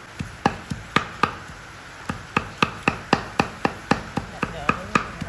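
Knife chopping on a cutting board in quick, even strokes: a few spaced chops, then a steady run of about four a second from about two seconds in.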